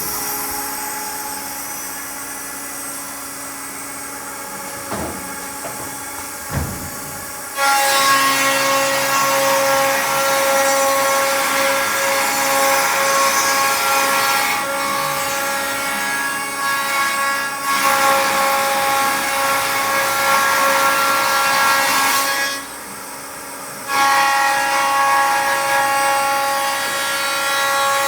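Router motors of a CNC stair router running and cutting wood stringers: a steady high whine with a hiss. It steps up in loudness about a third of the way in, after two short knocks, and drops back briefly near the end.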